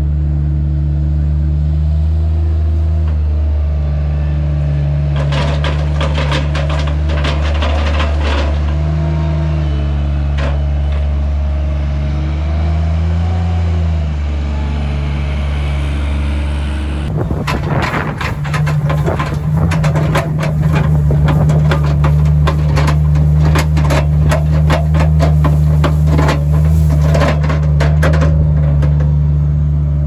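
Compact articulated loader's engine running steadily, with bursts of rattling about five to nine seconds in and continuous clattering through the second half as the machine moves and works.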